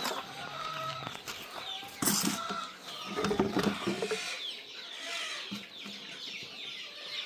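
Boschveld chickens calling: chicks peeping in many short, high, falling chirps over lower clucking from the flock. Going by the narrator, the chicks are hungry and waiting for a late feed. There is a brief rustle about two seconds in.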